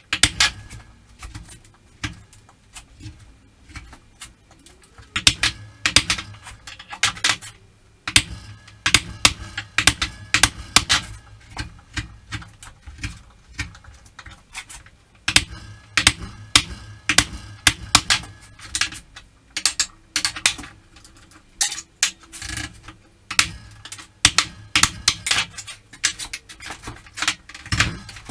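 Hand chisel work in a pine board: a claw hammer tapping a steel chisel, then the chisel chopping and prying out wood waste, giving a run of sharp, irregular knocks and clicks, several a second.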